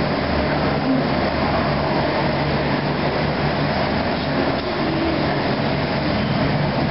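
Steady background din: a constant noisy rush over a low hum, with no distinct events.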